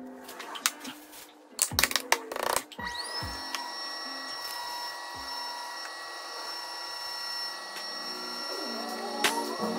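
Electric potter's wheel motor whining up to speed about three seconds in, then holding a steady high whine as the wheel spins. Before that come a few sharp knocks as the wheel head and clay are handled, with soft background music.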